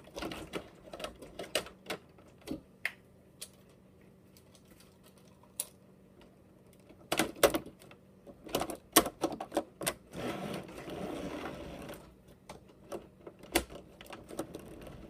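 Irregular clicks, taps and knocks of handling close to the microphone, with a stretch of rubbing about ten seconds in.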